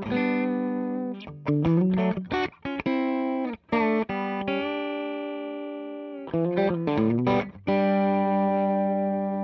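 Electric guitar (PRS Torero with Lollar Imperial pickups) played straight into a Marshall JTM45 clone valve amp with EL34 power valves, close-miked on a 1x12 cab with a 12-inch Black Shadow speaker. A run of short chopped chords, a chord held for about two seconds, a few quick stabs, then a final chord left ringing and slowly fading.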